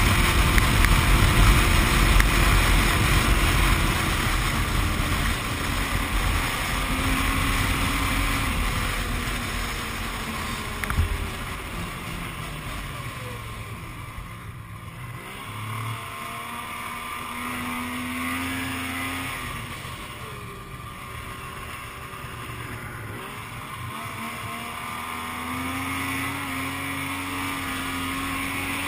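Yamaha snowmobile engine running on the move, its pitch dropping and climbing again several times as the throttle is eased and opened, with wind rumble on the microphone in the first few seconds. A single sharp knock about eleven seconds in.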